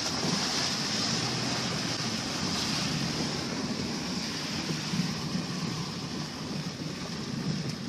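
Car driving slowly, with a steady hum of engine and road noise and an even hiss, heard from inside the cabin.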